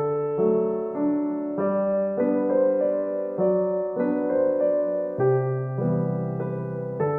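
Background music: a soft electric piano playing a gentle melody over sustained chords.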